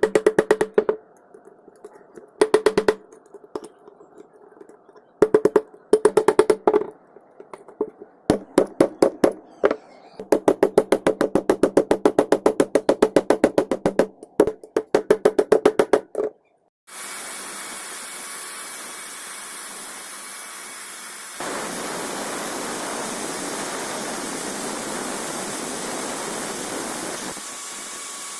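Bicycle bell rung in bursts of rapid strikes, up to about eight a second, each with a short ringing tone. About two-thirds of the way through, the ringing gives way to a steady machine noise with a thin high whine, which grows heavier a few seconds later.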